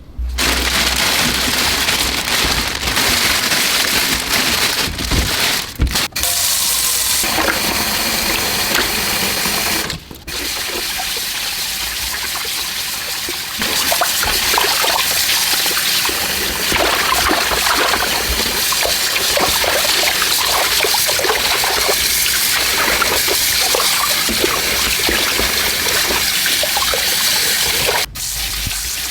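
Tap water running and splashing into a sink, in several takes with a few sudden breaks between them.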